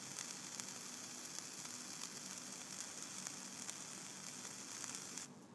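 Freshly built 30-gauge kanthal coil on an AGA T2 Genesis-style atomizer, fired by a Provari at 4.6 volts, sizzling and crackling steadily as it boils e-liquid off a saturated stainless-steel mesh wick. It cuts off suddenly about five seconds in. The even sizzle is the sign of a wet wick and a coil running without hot spots.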